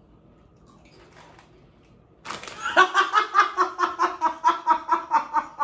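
A woman bursts out laughing about two seconds in, a loud run of rapid ha-ha bursts, about four or five a second, after a quiet start.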